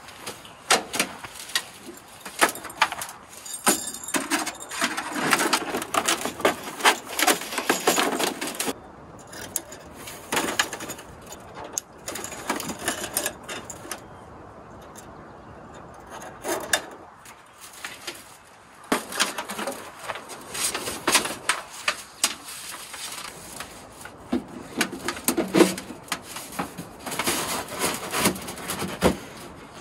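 Close handling noises of camp gear: repeated knocks, clicks and rustles as a small wood stove and its tall pipe are fitted up inside a tent, quieter for a couple of seconds around the middle.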